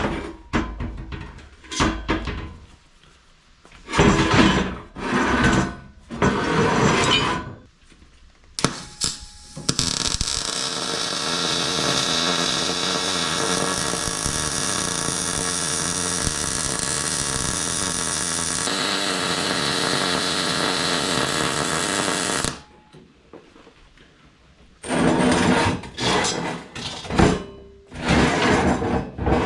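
A handheld power tool, most likely an angle grinder smoothing welds on steel tubing, runs steadily for about twelve seconds, its tone shifting slightly a few seconds before it stops. It is set between several short bursts of rubbing or scraping.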